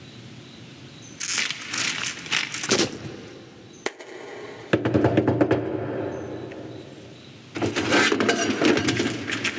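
Sound effects of crackling and crunching, in three bursts, with a single sharp click between the first and second.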